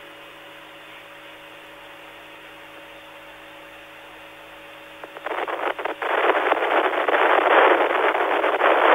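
Radio communication line noise, heard through the narrow band of a radio link: a steady hiss with faint steady tones. About five seconds in, loud crackling static breaks in and keeps on.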